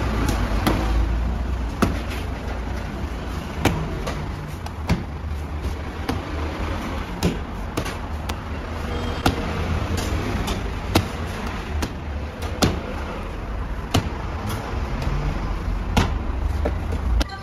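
Steady low rumble of a working bakery kitchen, with sharp clicks and knocks every second or two as dough is worked on a stainless steel table. The rumble cuts off just before the end.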